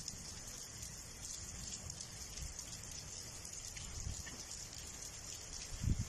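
Rain falling steadily at night, a continuous fine hiss, with low rumbles coming and going underneath and the strongest one near the end.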